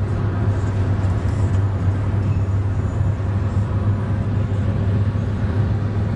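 Steady road and engine noise inside a moving car's cabin, a constant low drone.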